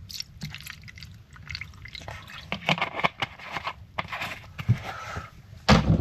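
Cleaning liquid dripping and splashing as rusty metal parts are pre-soaked, with irregular clicks and clatter of the parts being handled and a loud knock near the end.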